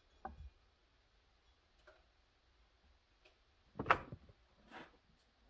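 A few light clicks, then a sharper knock about four seconds in: an accidental bump against the setup while the chainsaw engine is being turned over slowly by hand for port timing.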